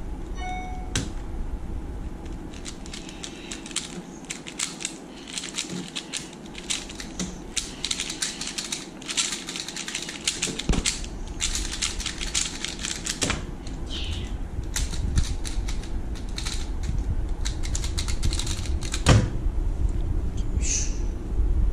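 3x3 speedcubes, one of them a magnetic Mini Valk 3 M, being turned fast: a dense, irregular plastic clicking of layers snapping round. A single sharp knock about two seconds before the end.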